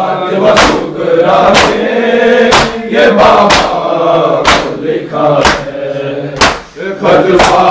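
A group of men chanting a Muharram noha in unison, with a sharp collective slap of hands on bare chests (matam) about once a second, keeping the beat of the chant.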